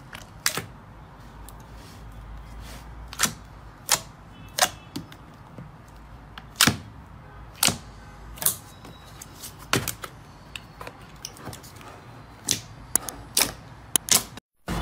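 A hand squeezing and kneading a large tub of clear, glossy slime, which gives sharp, irregular popping clicks, roughly one or two a second, over a faint low hum. The sound cuts out briefly near the end.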